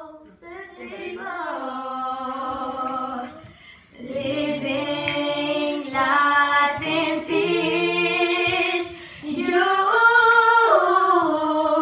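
Children singing a cappella: a single voice holds a few long notes, then several voices join in about four seconds in and sing on together, more loudly.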